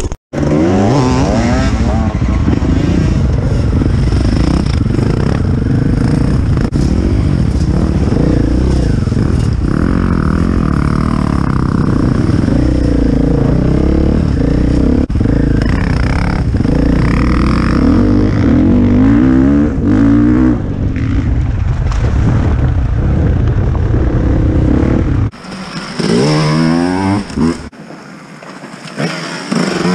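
Enduro dirt bike engine under way, revs rising and falling as it is ridden, with a heavy low rumble. About 25 seconds in the rumble drops away and the engine sound falls quieter, with short rising revs.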